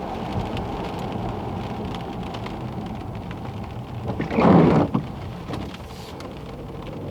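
Opel Astra J's 1.4 turbo engine and tyres on a wet road heard from inside the cabin while driving in the rain: a steady low rumble with rain hiss. No knock from the timing chain or hydraulic lifters is heard. A brief voice-like sound about four seconds in.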